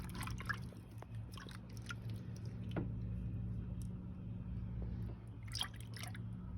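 Faint small splashes and squishes of a hand working in bath water, over a steady low hum.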